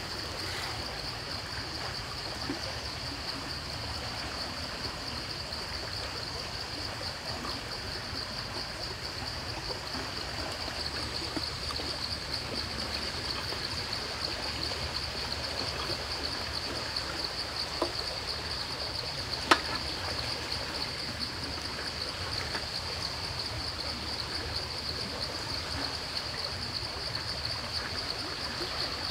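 Steady outdoor background noise with a continuous high-pitched hum. Faint ticks of food being handled in a stainless-steel tray, and one sharp click, the loudest sound, about twenty seconds in.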